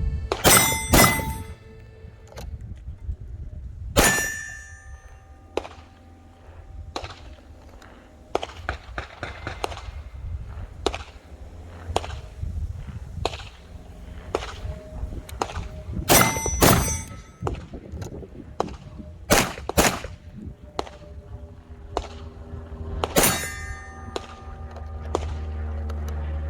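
Gunshots at a shooting range: sharp reports, several in quick pairs, each followed by a ringing metallic tone, with smaller knocks between.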